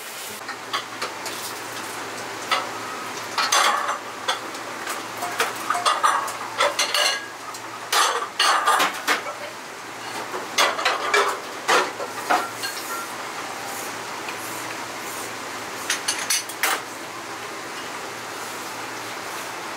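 Ramen-kitchen clatter: metal ladles, utensils and pots clinking and knocking against bowls in irregular bunches, with a little sizzling, over a steady low hum.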